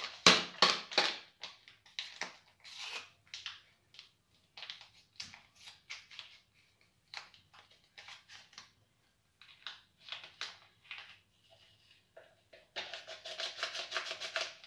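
Small paper sachet of flan powder being handled and torn open: a run of short, sharp crinkles and tears, then a denser, louder rustle near the end as the powder is shaken out of the sachet into a blender jug.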